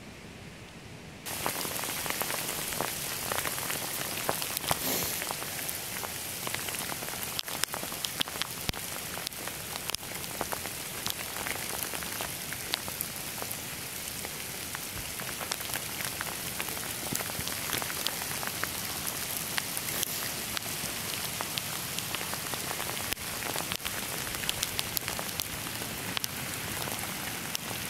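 Graupel, small snow pellets the hikers call popcorn snow, falling on the forest floor and trees. It makes a dense, steady hiss of tiny ticks that starts suddenly about a second in.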